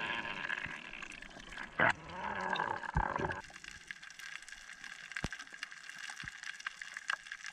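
Underwater reef sound picked up through a camera housing. A muffled, wavering drone with a loud thump near two seconds in gives way, about three and a half seconds in, to a quieter scatter of sharp crackling clicks.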